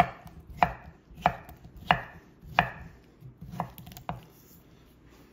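Chef's knife slicing stalks of hearts of palm into rounds on a wooden cutting board: about eight even chopping strokes, roughly one and a half a second, each a sharp knock on the board, stopping about four seconds in.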